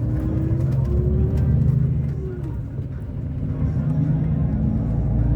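Engine and road noise heard from inside a moving tour coach, the engine note rising slowly as it gathers speed, twice.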